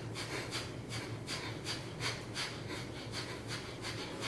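Kapalbhati (fire breath): rapid, rhythmic forceful exhalations through the nose, about three a second. The root lock (Mool Bandh) is held, so the breath is driven from deep in the lower belly.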